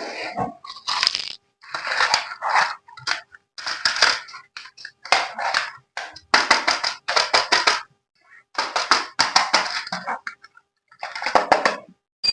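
Handling of packaging during an unboxing: short bursts of crackling and rustling, about a dozen in all, separated by brief silences.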